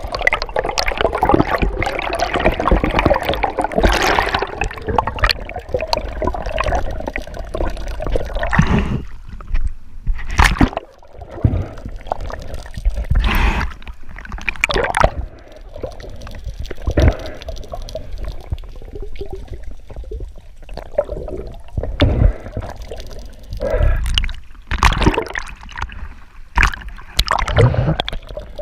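Sea water sloshing and gurgling around the camera: dense for the first several seconds, then in uneven short surges with quieter gaps.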